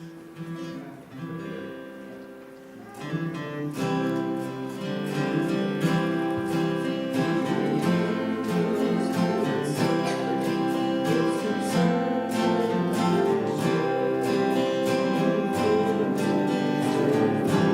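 Acoustic guitar being strummed, quiet at first and louder from about three seconds in.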